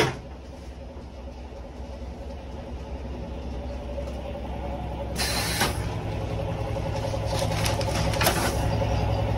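Pneumatic silage and beet-pulp bagging press running with a steady low hum that slowly grows louder. Its air cylinders give a short hiss of released air about five seconds in, and the mechanism clicks and rattles near the end.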